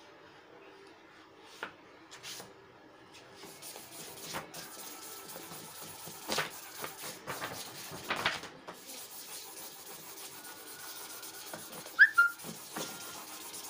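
Felt-tip sketch pen rubbing and scratching across paper in short, uneven strokes while colouring. A brief high squeak near the end is the loudest sound.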